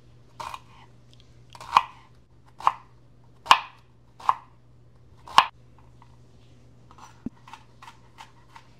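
Kitchen knife mincing a shallot on a cutting board: six firm chops a little under a second apart, then lighter, quicker taps in the last couple of seconds.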